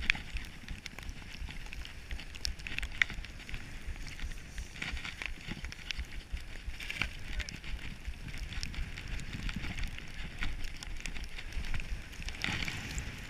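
Head skis scraping and hissing over packed snow. The hiss swells and fades every couple of seconds as the skis turn, with scattered clicks and a low rumble of wind on the microphone.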